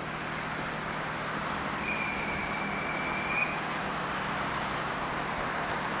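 Electric train running slowly into a station, a steady rumble of motors and wheels growing slightly louder as it comes closer. A high steady squeal sounds for under two seconds about two seconds in.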